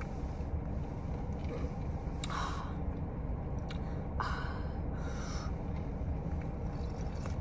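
A few short sips and breaths as iced coffee is drunk from a plastic tumbler, over the steady low hum inside a car.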